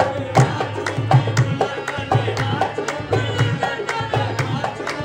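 Live qawwali music: a man singing over harmonium, with hand-drum strokes keeping a steady beat.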